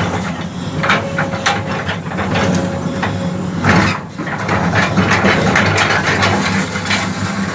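Bulldozer's diesel engine running at a steady speed, with repeated sharp knocks, clanks and cracks over it, easing briefly about halfway through.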